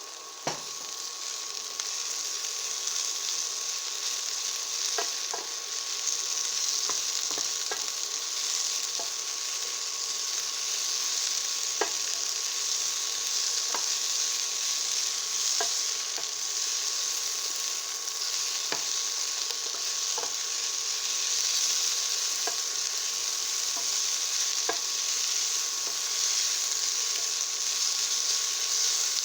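Green peppers and onions sizzling as they stir-fry in sesame oil in a pan, a steady hiss, with a sharp knock just after the start and a utensil clicking against the pan every second or two as they are stirred.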